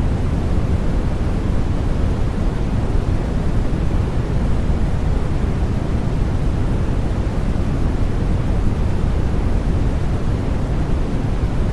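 Steady baby-sleep noise with its weight in the low end, a dull, deep hiss with little treble and no changes.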